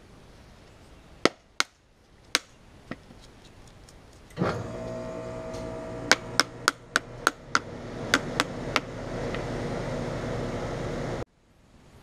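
Work on a reassembled ECM condenser fan motor. First a few sharp metallic clicks, then a steady mechanical whir starts abruptly. Over the whir come about ten light sharp knocks, roughly three a second, and it all cuts off suddenly after about seven seconds.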